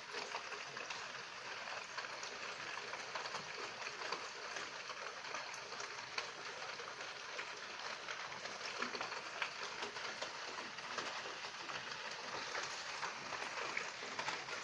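Steady night rain falling, a dense patter of many drops with sharper individual drip ticks scattered throughout.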